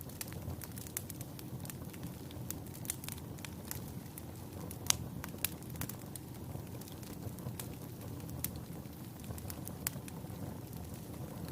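Wood fire burning in a fireplace: a steady low rush of flame with frequent sharp crackles and pops, the loudest pop about five seconds in.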